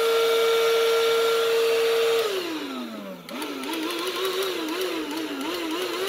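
AFBEST cordless handheld vacuum cleaner's motor running at full power with a steady high whine, then winding down in pitch about two seconds in. A quieter tone follows that wavers up and down about twice a second.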